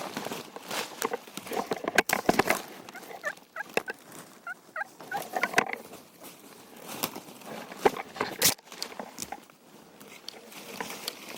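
Wild turkey gobbler gobbling, a rapid rattling run of notes about three to five seconds in, over scattered sharp clicks and rustles of leaves and handling.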